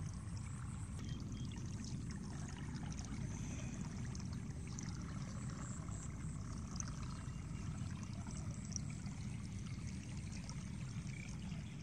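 Shallow water flowing and trickling steadily along a ditch in a field, with a steady low rumble underneath.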